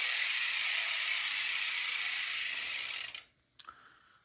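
Profile Racing Elite rear BMX hub freewheeling: the pawls click on the ratchet so fast that they merge into a loud, even buzz as the rear wheel spins. The buzz stops a little over three seconds in, followed by a faint click.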